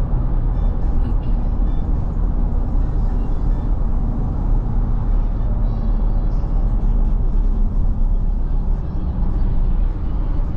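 Steady road and engine noise heard from inside a moving car's cabin, a low rumble with no let-up.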